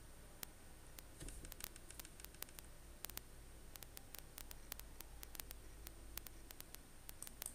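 Faint, irregular clicks of a computer keyboard and mouse, about three or four a second, over a low steady hum.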